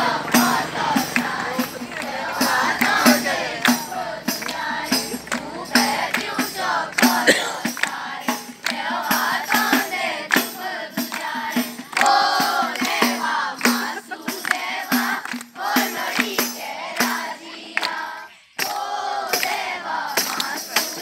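A group of children singing together and clapping along in a steady rhythm, breaking off briefly near the end.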